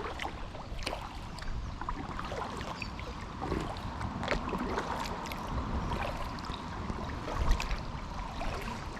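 Kayak paddle dipping and splashing in river water, with scattered small splashes and knocks and a louder splash about seven and a half seconds in.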